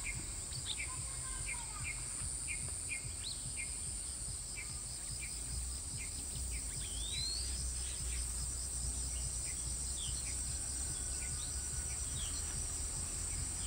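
Forest ambience: a steady, high-pitched chorus of insects with scattered short bird chirps and a rising bird call about seven seconds in, over a low rumble.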